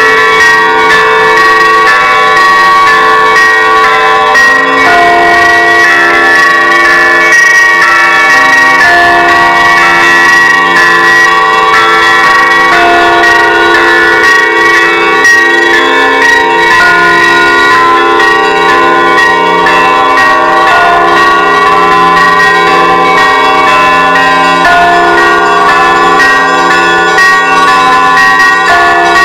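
Russian Orthodox church bells ringing the Easter peal: many bells of different pitches struck together in a continuous, loud ringing.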